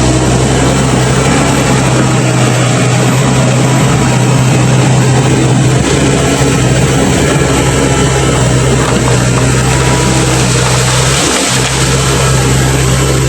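Komatsu PC135 excavator's diesel engine running steadily and loud, with a brief dip in the low hum about eleven seconds in.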